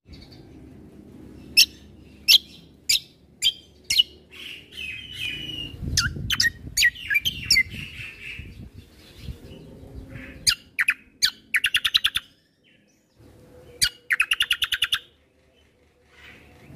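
Kecial kombo (cucak kombo) songbird singing: a string of sharp, high, downward-sweeping notes, then twice a fast rattling trill, with short pauses between phrases.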